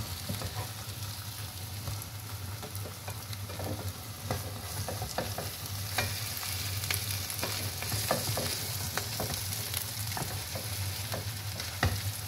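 Chicken pieces and egg sizzling in a non-stick frying pan as they are turned and stirred with a wooden spatula, with frequent clicks and scrapes of the spatula against the pan. A low steady hum runs underneath.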